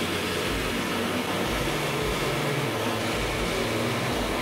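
Shop-vacuum dust extractor running with a steady whooshing noise, drawing air through its hose.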